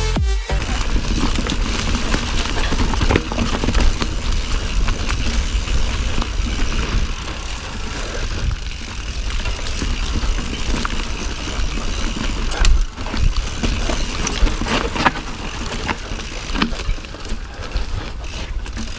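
Mountain bike being ridden over rough trail: a continuous rush of tyre and wind noise with low rumble, broken by sharp knocks and rattles from the bike as it hits bumps.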